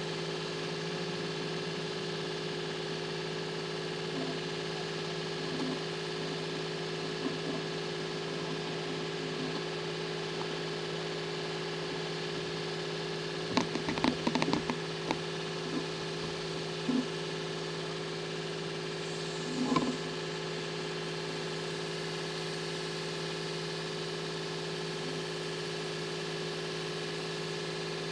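An engine running steadily at idle, a constant hum. A short cluster of knocks comes about halfway through, and one more brief knock a few seconds later.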